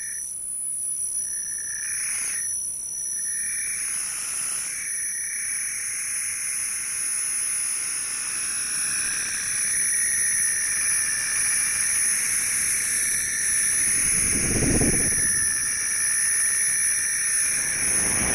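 Electronic sound-art piece played from laptops: layered high, sustained tones over a hiss. A mid-pitched tone swells twice in the first few seconds, and a low swell rises and fades about fourteen seconds in.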